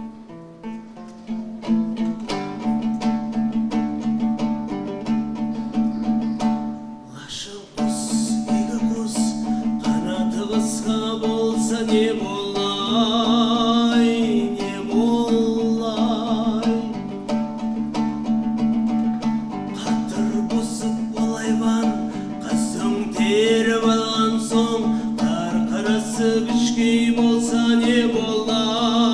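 Folk ensemble of plucked long-necked dombras strumming a tune over a steady low accompaniment, building up about two seconds in. A man's singing voice, with a light vibrato, comes in over the strings about eight seconds in.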